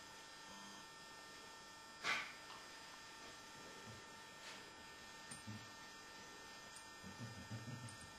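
Faint steady electrical hum, with one sharp knock about two seconds in and a few faint low sounds near the end.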